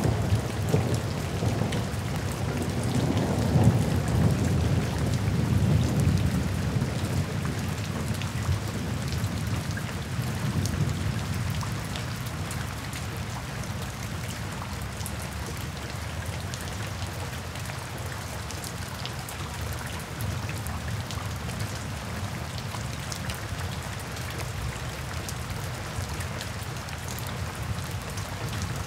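Steady rain falling on a wet paved surface, with many separate drops splashing close by. A low rumble underneath is strongest in the first ten seconds or so and then dies away.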